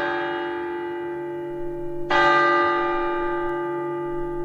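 Bell-like alert tone struck about every two and a half seconds, each strike ringing on and slowly fading before the next; it is the attention signal of a mock Emergency Alert System broadcast, ahead of a spoken flood warning.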